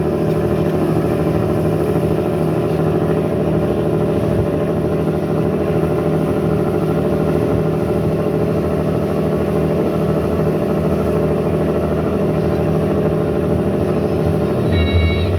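Riverboat engine running steadily, a constant low drone.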